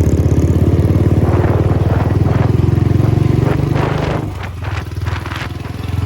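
Royal Enfield Bullet's single-cylinder engine running under throttle with a rapid, even thump, easing off about four seconds in to a quieter run.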